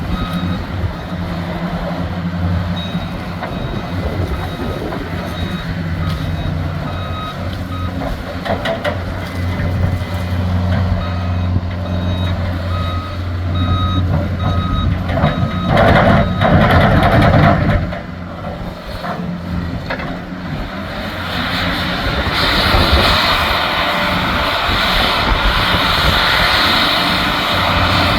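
A loader's engine runs with its reversing alarm beeping in repeated runs while it backs up. About two thirds of the way through there is a short loud burst of harsh noise, and then a longer stretch of rough noise: the bucket working gravel to spread and smooth it.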